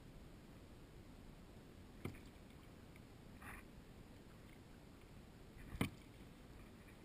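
Faint low water and wind noise while paddling a plastic kayak, with two sharp knocks of the paddle against the hull, a light one about two seconds in and a louder one near the end, and a soft brief rustle between them.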